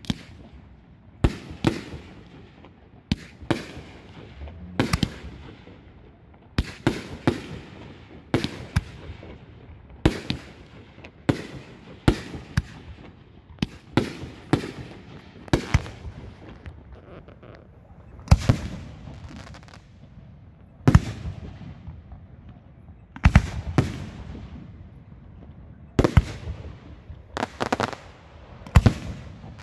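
Aerial fireworks shells bursting overhead in rapid succession: sharp reports every second or so, many in close pairs, each trailing off into a rumble.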